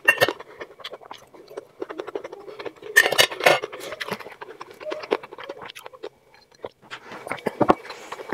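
Small clicks and scrapes of a metal fork and spoon on a ceramic plate, loudest around three seconds in as the cutlery is set down on the plate, with close-miked chewing and mouth sounds around them.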